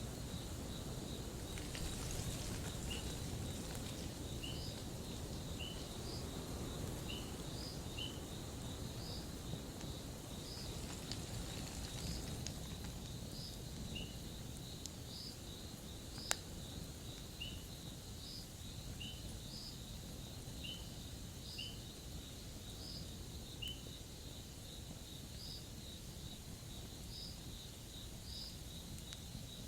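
Campfire burning with a soft low rumble and occasional faint crackles, and one sharp pop about halfway through. Insects keep up a steady high trill behind it, with a chirp repeating roughly every second and a bit.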